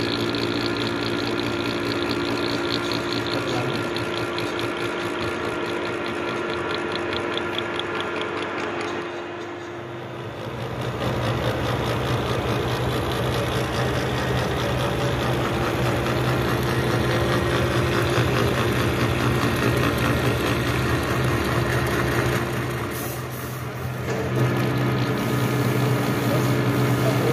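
Milling machine running steadily as a disc-type gear cutter mills the tooth spaces of a duralumin spur gear. A deeper hum takes over about ten seconds in, and the higher hum comes back near the end.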